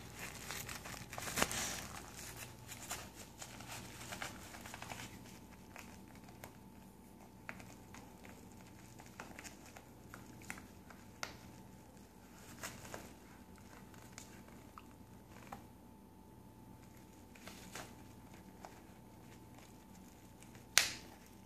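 A dog chewing and tearing at a yellow paper mailer envelope: paper crinkling with scattered crackles and rips, busiest in the first few seconds, then sparser. A single sharp click near the end is the loudest sound.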